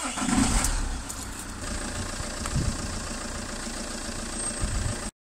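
Diesel car engine started on the key, louder as it catches in the first second, then idling steadily.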